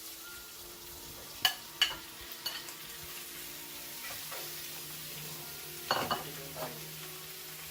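Shrimp sizzling in a frying pan while being stirred, with several sharp clinks of the utensil against the pan.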